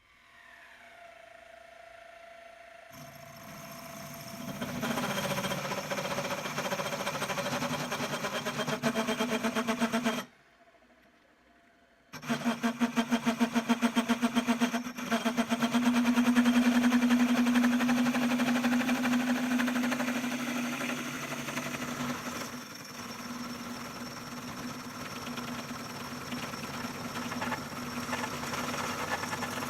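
Electric benchtop machine tool running, with a steady motor whine and hum, likely while machining metal parts. It drops out for about two seconds partway through and resumes with a fast, even pulsing.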